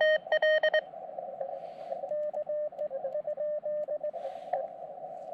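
Elecraft KX2 transceiver in Morse code. The operator's own loud keyed sidetone stops about a second in, then the receiver's band hiss comes through the narrow CW filter, with a fainter station keying Morse in the middle.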